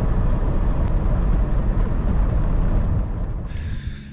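Steady road and engine noise of a semi-truck driving at highway speed, heard from the cab. It fades down over the last second as the noise drops away, leaving a low engine hum.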